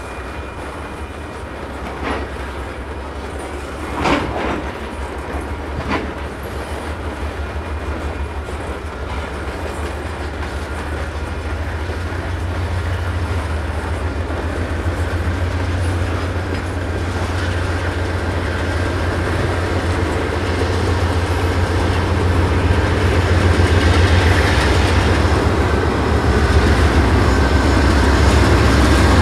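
Freight train of tank cars rolling slowly past, with a few sharp clacks from the wheels over rail joints early on. A diesel locomotive's low engine rumble builds steadily louder as a Canadian Pacific GE AC4400CWM draws near at the end.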